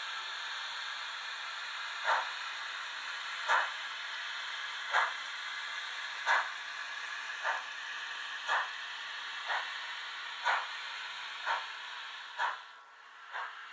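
H0-scale Märklin model steam locomotive setting off slowly: a steady steam hiss with soft exhaust chuffs that begin about two seconds in and quicken slightly to about one a second.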